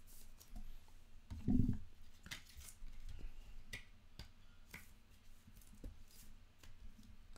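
Trading card in a soft plastic sleeve being handled and slid into a rigid clear plastic holder: scattered plastic clicks and scrapes, with one louder low thump about a second and a half in.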